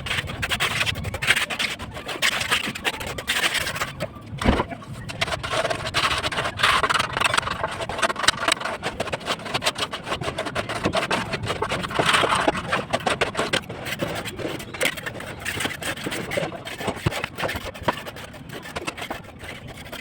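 Continuous scraping and knocking of construction work, with many small clicks and one sharp knock about four and a half seconds in.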